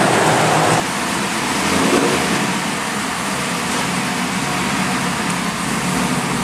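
LS1 V8 engine running on a chassis dyno. It is loud for the first second, then drops suddenly to a steady, lower running drone.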